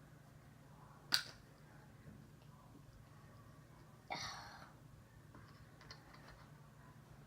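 Faint handling noises at a table: a sharp click about a second in and a louder, short clatter about four seconds in, with a few light ticks after, over a low steady hum.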